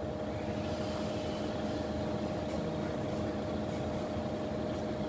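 Forklift running steadily: a constant low hum with a steady whine over it.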